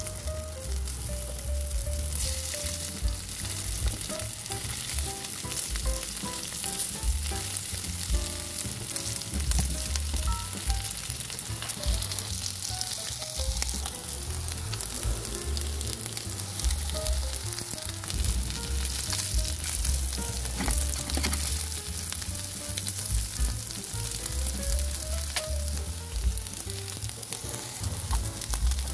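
Potato chunks shallow-frying in a frying pan, a steady sizzle, with now and then the scrape and knock of a spatula turning them.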